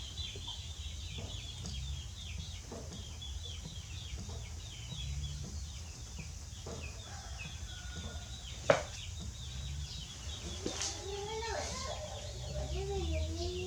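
Chicks peeping continuously in quick, high, falling chirps, several a second. A single sharp click about nine seconds in is the loudest moment, and a lower wavering call comes near the end.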